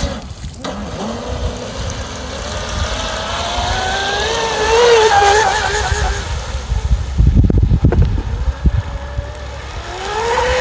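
Surge Crusher RC speedboat's stock 2000kv brushless motor whining at speed, rising in pitch as the boat accelerates across the water. A stretch of low buffeting noise comes about seven seconds in, and the whine rises again near the end.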